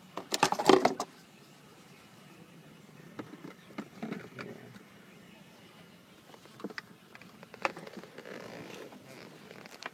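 Small plastic switch parts handled in the hands: a burst of rattling clicks about half a second in, then scattered light clicks and taps and a faint rustle.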